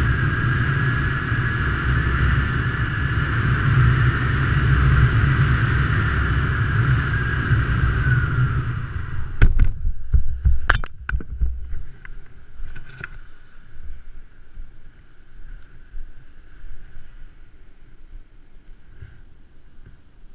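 Wind rushing over a helmet-mounted camera during a parachute descent, with a high whistle that dips in pitch and fades about eight seconds in. The rush cuts out at touchdown around nine to eleven seconds in, with a cluster of thumps and scuffs as the skydiver lands, followed by faint rustling.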